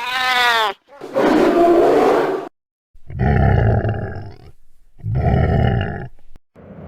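Sound-effect creature roars for an alien dinosaur: a short high, wavering screech, then three rough growling roars separated by brief silences.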